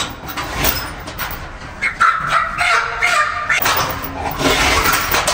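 Bengal tiger snarling with its mouth at the cage hatch as it takes a raw chicken, a broken call from about two seconds in, with a few knocks of the metal gate before it.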